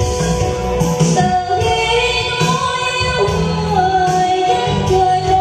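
A woman singing a slow song through a microphone and PA, with long held notes, accompanied live by acoustic guitar and keyboard.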